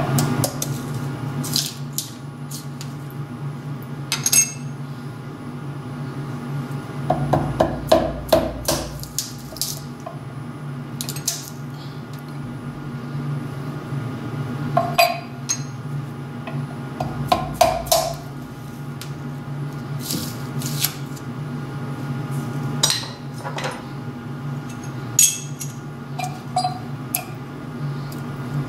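A machined aluminium part being scraped and pried loose from taped workholding on a steel milling vise: scattered metallic clinks, scrapes and knocks, with two busier bursts of handling, over a steady low machine hum.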